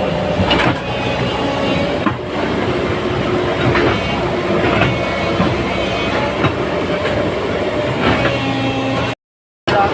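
JCB 205 tracked excavator working: its diesel engine runs steadily under load, with irregular metal clanks and knocks every second or so. The sound cuts out completely for about half a second near the end.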